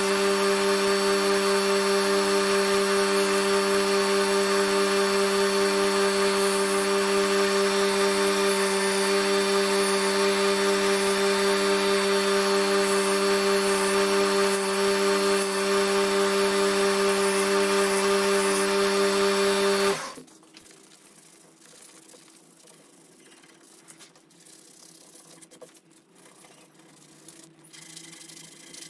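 Belt grinder running steadily with a hardwood knife-handle scale being sanded against the belt; about two-thirds of the way through the sound cuts off abruptly, leaving faint handling and rubbing sounds.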